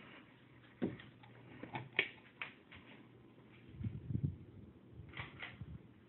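Scattered light clicks and knocks with a few soft low thumps, typical of footsteps and a handheld camera being moved about, over a faint steady low hum.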